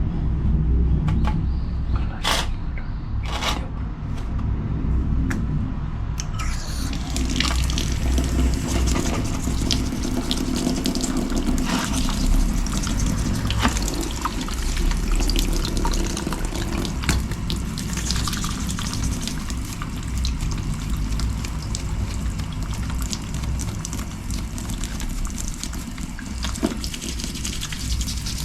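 A few sharp knocks and clicks, then steady running water from about six seconds in, over a low rumble.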